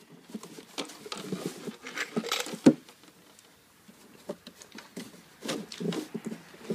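Hard plastic parts of a baby swing seat being handled and fitted together: scattered light clicks, knocks and rubbing, with one sharper knock nearly three seconds in and a short lull after it.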